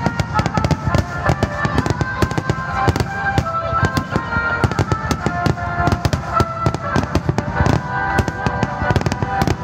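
Aerial firework shells bursting in a dense, continuous barrage: many bangs in quick succession, close together and overlapping, with crackle between them.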